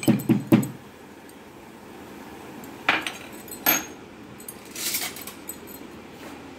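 Metal pestle pounding whole spices (ginger, green cardamom, fennel seeds) in a metal mortar: a few quick, evenly spaced strokes, ending within the first second. Two single sharp knocks follow, about three and four seconds in.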